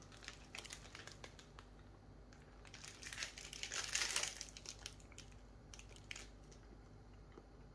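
Food packaging crinkling as it is handled: faint scattered crackles, with a longer rustle about three to four seconds in.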